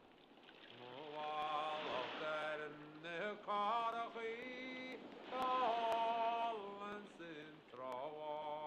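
A slow, wordless melody sung or chanted by a man's voice in held notes, in four phrases with short breaks between them.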